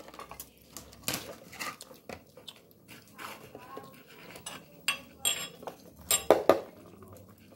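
Metal spoon clinking and scraping on a plate of roasted fish, a string of separate clicks and knocks, the loudest a few about five to six and a half seconds in.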